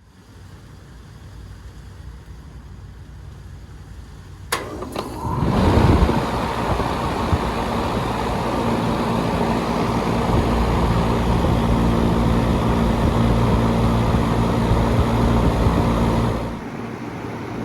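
2003 Trane XR11 2.5-ton central air conditioner condensing unit starting up: a contactor click about four and a half seconds in, then its Copeland scroll compressor and condenser fan come up to speed within about a second and settle into a steady hum with a low tone. The level drops somewhat near the end.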